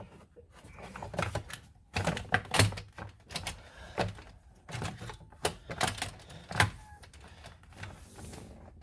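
Lower plastic steering column shroud being worked into place: an irregular run of sharp plastic clicks and knocks, the loudest about two and a half seconds in and again a little after six seconds.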